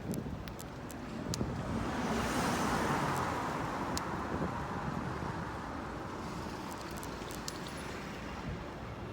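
A vehicle passing by: road noise swells to a peak about three seconds in, then fades away, with a few light clicks.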